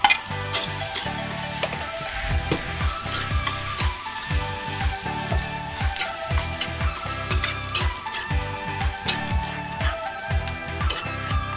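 Minced garlic sizzling in hot oil in a wok, being sautéed, with a spatula stirring and scraping against the pan and giving sharp clicks and taps throughout.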